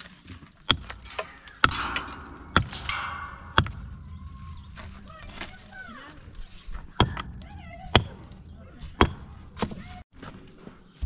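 Sharp blows struck about once a second: four in a row, a pause of about three seconds, then four more.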